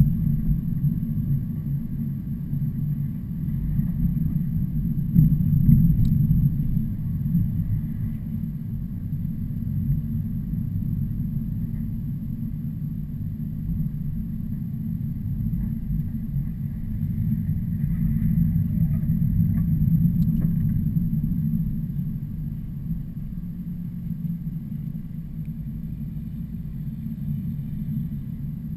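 Heavy trucks passing, a deep engine and tyre rumble that swells about five seconds in and again around eighteen to twenty seconds, then eases off.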